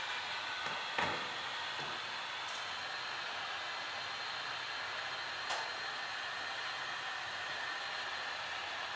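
Temperature-controlled heat gun blowing steadily, with two light clicks about a second in and about five and a half seconds in.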